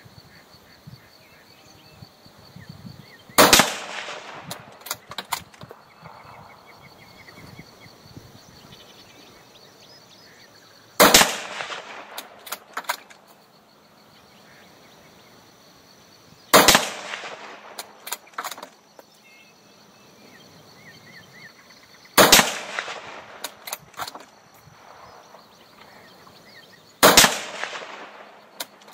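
Five shots from a GA Precision Gladius bolt-action rifle in .308 Winchester, with a short 18.5-inch barrel and a SureFire muzzle brake, fired several seconds apart. Each is a sharp crack with a trailing echo, followed by smaller clicks of the bolt being worked.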